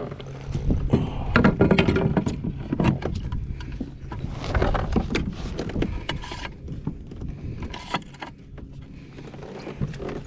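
Irregular knocks, clicks and rattles of gear being handled aboard a kayak, busiest in the first half, over a steady low hum.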